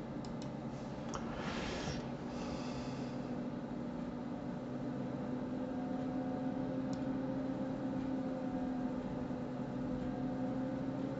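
Steady low hum of room tone at a computer, its faint tones creeping slightly higher, with a few mouse clicks in the first second and a soft breath about two seconds in.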